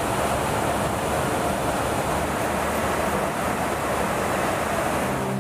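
Steady rushing roar of airflow and engine noise inside a refuelling tanker aircraft in flight, heard from the boom operator's station.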